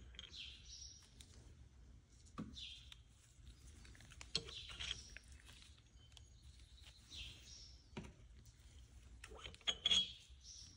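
Helical pinion gears of a Torsen-type limited slip differential being handled and slid out of their pockets in the steel case: faint metal clicks and scraping, with a few small clinks and the loudest clicks near the end.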